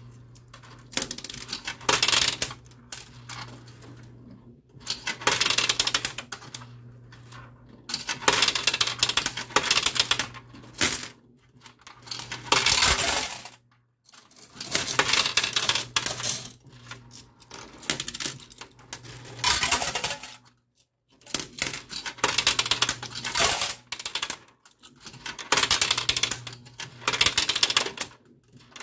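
Quarters clattering in a coin pusher machine, in repeated bursts every second or two as coins drop onto and slide across the metal piles, over a low steady hum.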